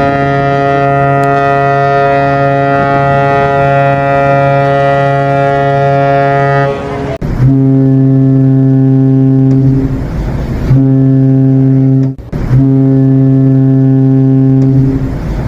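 Ship's horn sounding: one long, deep blast of about seven seconds, followed by three shorter blasts with brief gaps between them.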